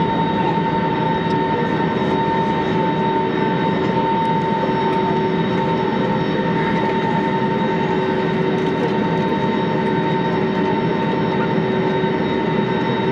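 Steady cabin noise inside an Airbus A320neo airliner after landing: a constant hum with a high, unchanging whine.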